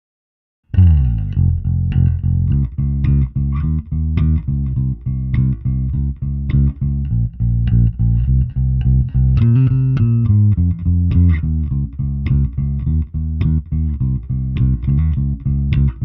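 Electric bass played through a Zoom B1X Four multi-effects processor, starting about a second in with a busy line of short plucked notes. It goes through the preset patches 'Explosion' and then 'AMPG Set'.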